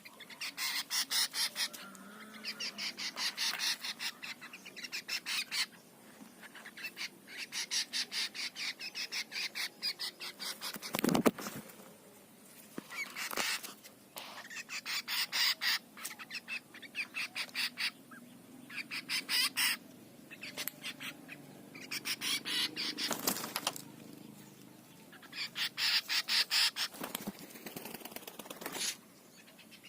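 A tame drongo and a spotted dove fighting: repeated bursts of rapid wing-flapping, each lasting a second or two, coming every few seconds, with a couple of sharper knocks.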